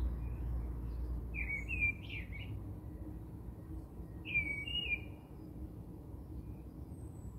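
A small bird chirping in the background: two short twittering phrases of quick rising and falling notes, about a second and a half in and again about four and a half seconds in, over a low steady background hum.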